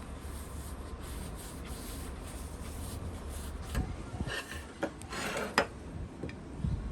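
Scraping and rubbing sounds from hand work, with a couple of light knocks, over a steady low hum.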